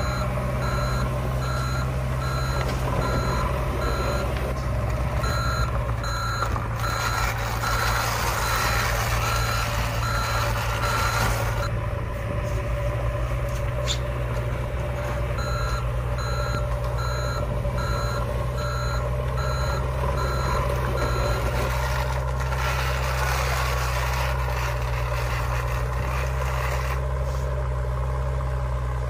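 Toy JCB backhoe loader's sound module playing reversing beeps, about two a second, over a steady low engine drone. The beeping stops twice for a few seconds and then starts again.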